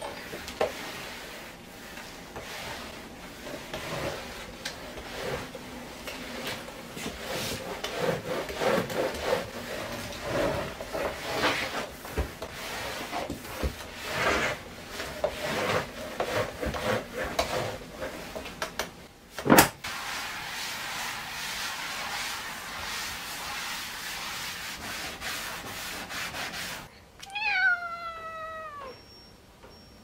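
Flat floor mop with a dry disposable sheet swishing and rubbing over a wooden floor in irregular strokes. A single sharp click comes about two-thirds of the way in. Near the end a cat meows once, a call that falls in pitch.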